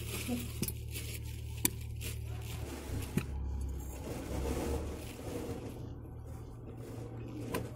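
Rustling and scraping as wheat grain is scooped by hand from a plastic bag into small clay pots, with scattered light clicks of the pots being handled.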